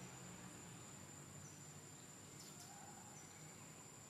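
Near silence: faint forest ambience with a steady high-pitched insect whine.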